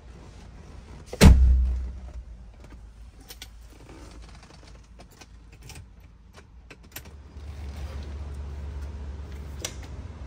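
The heavy driver's door of a 1983 Mercedes-Benz 300CD coupe pulled shut with a solid thud about a second in, followed by scattered light clicks from handling the interior, and a low steady hum over the last few seconds.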